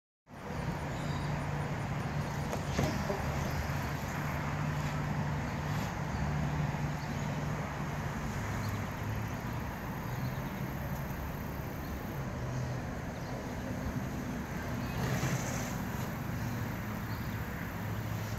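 A motor running steadily, a low hum that shifts in pitch a few times, over a steady background rush, with a couple of faint knocks.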